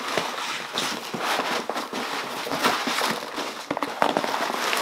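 Cardboard shipping box being pulled open by hand: irregular crackling and scraping of the flaps and packing tape, with packing peanuts rustling inside.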